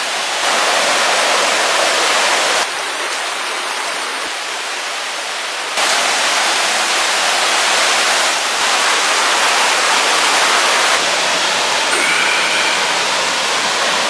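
Rushing water of a rocky river tumbling over boulders and small cascades. It makes a steady, even rush whose loudness steps up and down abruptly a few times.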